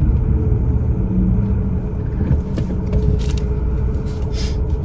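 Low steady rumble of a car heard from inside its cabin, with a faint steady hum running over it and a few light ticks.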